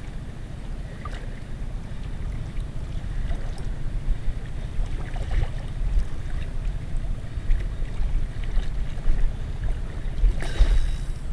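Wind buffeting an action camera's microphone as a steady low rumble, with water lapping, and a brief louder rush of noise near the end.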